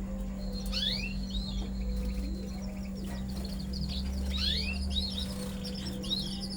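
Domestic canaries chirping and singing during pairing: repeated rising whistled sweeps and quick trilled notes, over a steady low hum.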